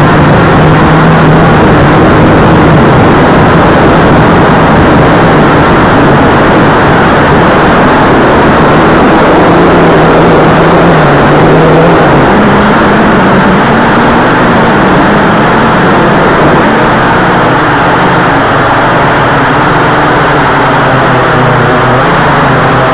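Blade 350QX2 quadcopter's four brushless motors and propellers heard up close from the camera mounted on it: a loud, steady buzzing drone whose low tone drifts up and down as the motors change speed in flight.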